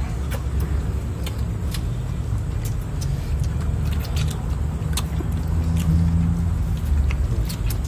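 Steady low rumble of a motor vehicle engine running, with scattered short clicks of chewing and lip-smacking close to the microphone as meat is eaten off a cooked monitor lizard's backbone.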